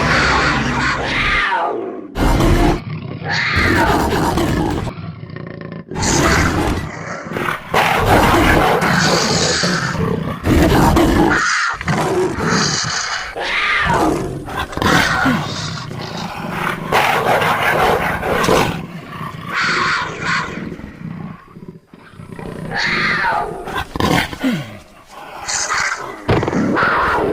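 Cartoon big-cat roar and snarl sound effects, one call after another with abrupt cuts between them, many falling in pitch.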